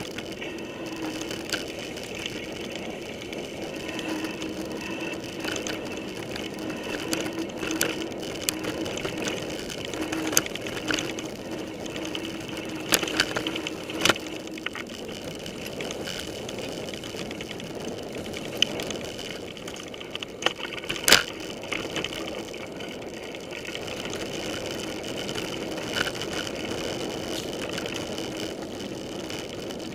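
Mountain bike rolling over a rough dirt forest trail, picked up by a camera mounted on its handlebar: a steady rumble of tyres and drivetrain with sharp knocks and rattles now and then as the bike jolts, the loudest about twenty seconds in.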